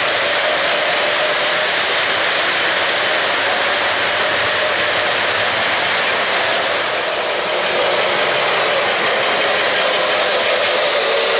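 O-gauge model freight train running on three-rail track: a steady rolling clatter of the cars' wheels on the rails, dipping slightly about seven seconds in.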